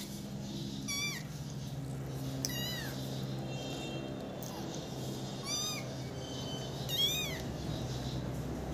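Kittens meowing: about five short, high-pitched meows spaced a second or more apart, over a low steady hum.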